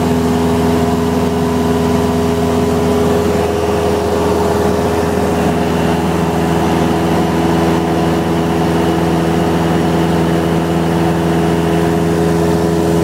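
Single-engine light plane's engine and propeller droning steadily, heard from inside the cabin; its tone shifts slightly about four seconds in.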